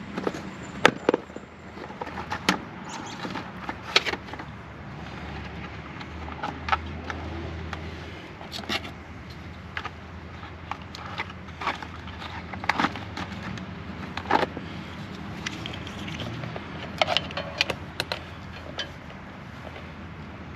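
Irregular light clicks, taps and knocks of hand tools and small parts being handled during wiring work, over a steady low hum.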